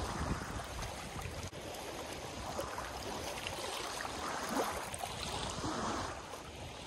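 Small lake waves lapping and splashing against shoreline rocks, in soft irregular swashes every second or so.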